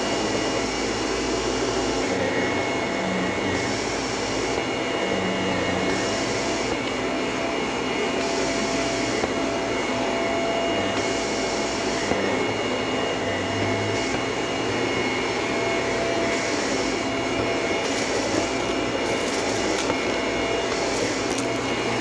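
Vacuum cleaner running while it is pushed back and forth over carpet, a steady motor whine under a hiss that swells and fades with each stroke about once a second, with a few light clicks near the end.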